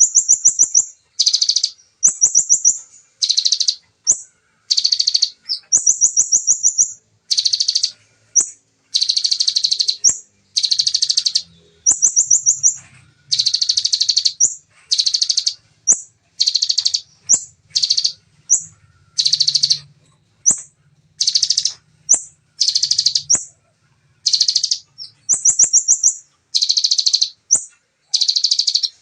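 Bar-winged prinia (ciblek) singing in rapid-fire bursts: dense, clear trilled phrases, each under a second, repeated about once a second with short high trills between them.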